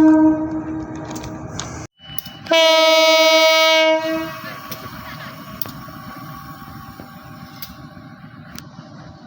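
Indonesian diesel locomotive horn sounding semboyan 35, the departure signal. One blast dies away in the first half second. After a brief break a second steady horn blast follows, about a second and a half long, and then a lower rumble continues with a few faint clicks.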